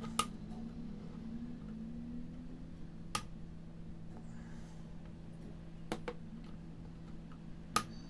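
Four sharp clicks, about three seconds apart, over a steady low hum; the third click is doubled.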